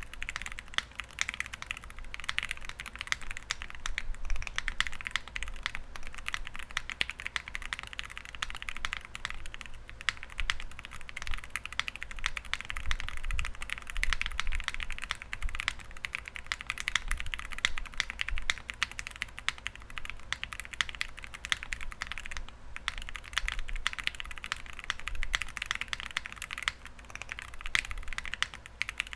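Continuous typing on a mechanical keyboard fitted with Akko Rosewood switches (nylon housing and stem, full 4 mm travel bottoming out on the rails) in a CL60 on a gummy O-ring mount, with ABS keycaps: a dense, unbroken stream of keystroke clacks, with a short pause about 22 seconds in.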